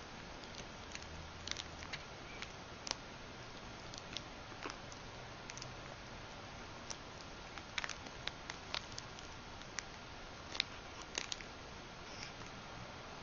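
Scattered light clicks and taps, irregular and in small clusters, as a kitten bats at and mouths a dangling metal bead chain, over a faint steady hiss.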